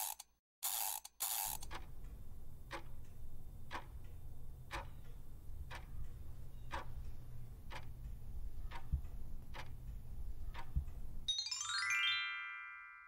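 Quiz sound effects: three quick whooshes, then a countdown clock ticking about once a second over a low rumble. About eleven seconds in the ticking stops and a rising chime arpeggio rings out and fades, marking the reveal of the correct answer.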